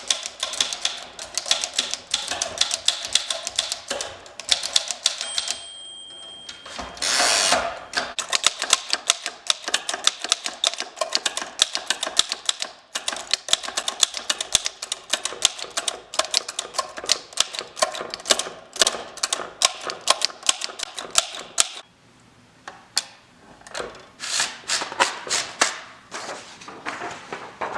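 1915 French Typo manual typewriter being typed on, a rapid run of key and typebar strikes. About five seconds in the margin bell rings once, then the carriage is returned with a short sliding clatter, and typing resumes. There is a brief pause near the end before a last burst of keystrokes.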